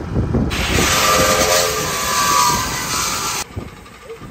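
Metal-cutting chop saw cutting through steel tube: a loud, harsh hiss with a steady whine as the blade bites in, cutting off abruptly about three and a half seconds in when the cut is finished.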